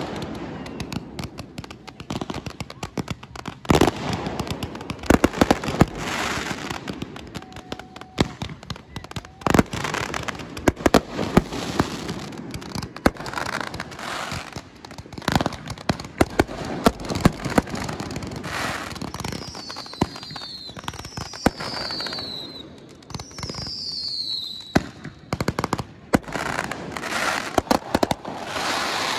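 Fireworks going off: a steady run of sharp bangs with crackling between them. About two-thirds of the way in come three high whistles, each falling in pitch.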